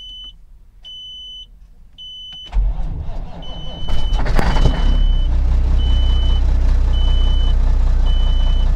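Semi truck's diesel engine cold-started after sitting a week in about 24-degree cold: it cranks briefly about two and a half seconds in, catches about four seconds in, and settles into a loud steady idle. A warning beep in the cab repeats about once a second.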